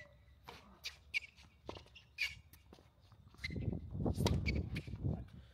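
Outdoor tennis court ambience. Birds chirp here and there over scattered short taps and scuffs. From about three and a half seconds in, a louder low rumble lasts nearly two seconds.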